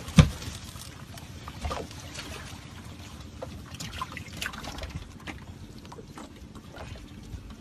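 Water trickling and splashing in small drips, with one sharp knock just after the start and scattered light clicks after it.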